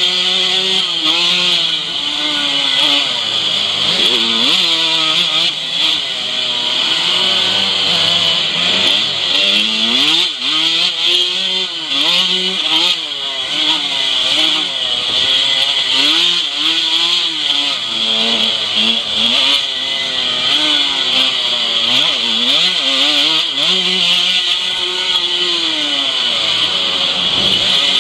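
125cc two-stroke motocross bike engine at race pace on the dirt track, its pitch rising and falling again and again as the rider works the throttle and gears.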